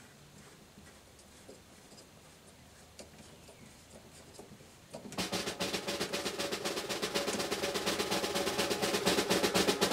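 A snare drum roll comes in about halfway through and builds steadily in loudness. Before it there are only faint small clicks.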